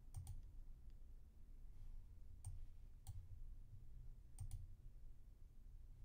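Faint, scattered computer mouse clicks, a few single and a few in quick pairs, over a low steady hum.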